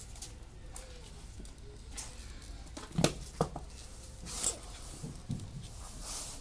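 Two sharp knocks about half a second apart, a plastic floor wiper's head tapping on a stone floor, followed by a brief scraping rustle.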